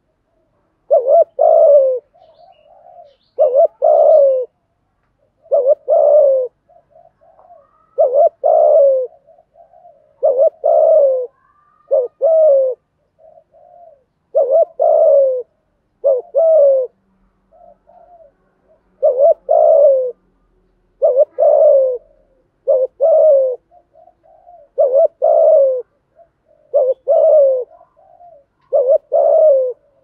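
Spotted dove cooing in a steady rhythm: a loud double or triple coo, each note falling in pitch, about every two seconds, with softer short coos in between. This is the bowing coo ('gù') that keepers play to stir a caged dove into calling.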